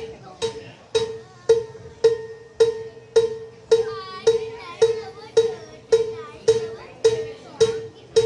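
A single percussion piece, ringing on one clear mid-pitched note, struck alone at an even pace of about two hits a second. It is being checked on its own through the PA during a band's sound check.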